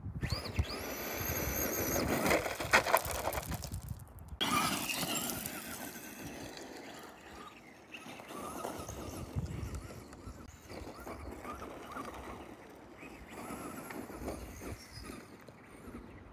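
Electric RC truck (Traxxas Rustler) driving on loose gravel: motor whine rising as it accelerates, with tyres spraying stones. The sound cuts off abruptly about four seconds in, after which the truck runs fainter and farther off, its motor whine rising and falling now and then.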